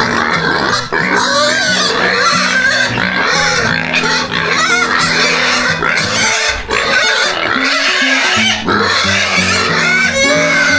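Background music with steady held notes, with pigs calling over it.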